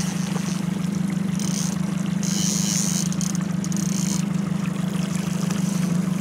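Boat engine running steadily with a low, even hum, over water splashing and trickling where a hooked salmon swirls at the surface.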